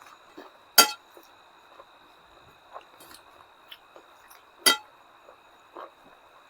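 A person eating by hand at close range: soft smacking and chewing clicks, with two sharp, loud clicks, one about a second in and one near the five-second mark.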